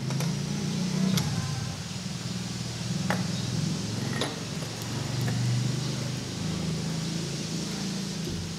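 A steady low mechanical hum like a running engine, with a few sharp clicks and knocks from handling the Bunsen burner and its gas hose, about four times in the first half.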